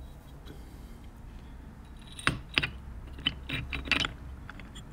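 A scatter of light metal clicks and clinks, starting about two seconds in, as the slide spring is fitted to a Bing carburettor during reassembly.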